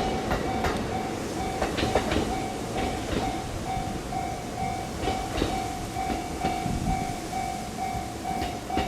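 Railroad crossing warning bell ringing in a steady repeating beat while a train passes, its wheels clacking over the rail joints.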